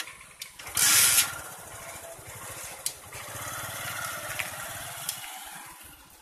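Motor vehicle engines running, with a loud brief rush of noise about a second in. The engine noise grows louder as a motorcycle comes up and rides past close by, then fades near the end.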